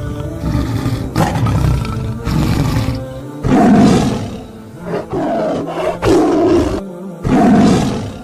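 Tiger growling low, then roaring four times in the second half, each call under a second long, over background music.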